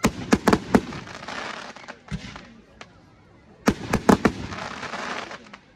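Aerial firework shells bursting in two quick clusters of sharp bangs, one at the start and one a little after halfway, each cluster trailing off in a fading hiss.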